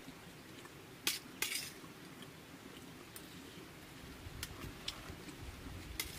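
Dishes clinking as someone eats from a plate: two sharp clinks about a third of a second apart, a little over a second in, then a few faint ticks.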